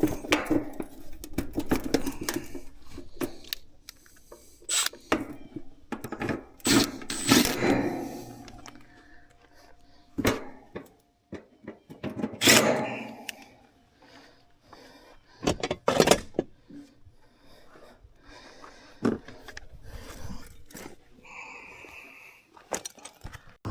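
Irregular knocks, clatter and scrapes of objects being handled, with a short steady tone a little after 21 seconds.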